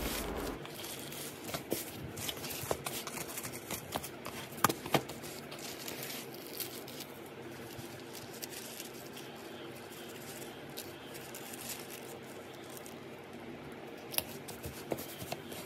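Thin black plastic bag crinkling and rustling as it is folded and smoothed around a flat parcel, with scattered soft crackles that come thickest in the first few seconds and again near the end.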